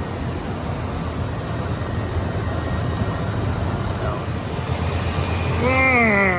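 Trane rooftop HVAC unit running in cooling mode, just after it kicked in: a steady low machinery hum.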